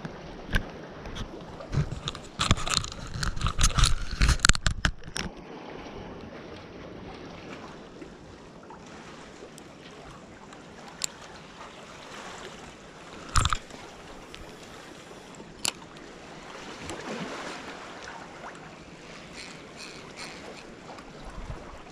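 Sea waves washing on the shore with wind on the microphone. The first few seconds are full of loud, irregular rumbles and bumps, then the wash goes on steadily, broken by a few sharp knocks, the loudest about halfway through.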